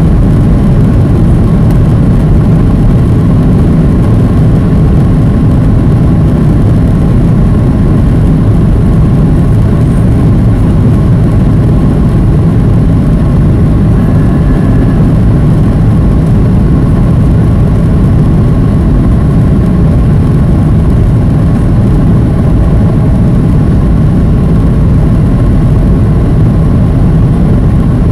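Steady, loud drone of a Boeing 737's jet engines and rushing airflow heard inside the passenger cabin as the airliner descends toward landing.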